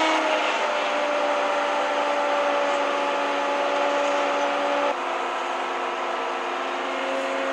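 The Champion 100T grader's 16-cylinder, 18-litre Detroit Diesel two-stroke engine running steadily, a hum of even tones over rough engine noise, heard from inside the cab. It drops a little in loudness about five seconds in.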